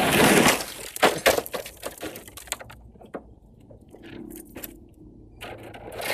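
Grit and small stones thrown up by an electric RC truggy rattle and patter down around the microphone: a loud rush at first, then many sharp ticks that thin out over a few seconds. Near the end the truck's motor and tyres grow louder as it comes back.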